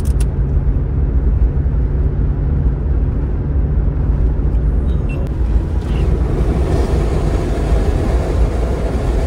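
Steady low road and engine rumble heard from inside the cabin of a diesel Mitsubishi Pajero cruising on a highway.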